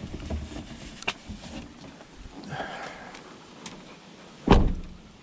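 A few light clicks and rustles around a car, then a car door shut with a heavy thump about four and a half seconds in.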